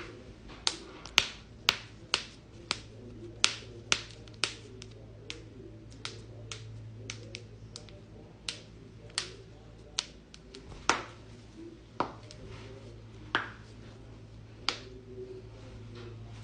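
Joints cracking: a long run of about twenty sharp pops, coming roughly every half second at first and spacing out toward the end.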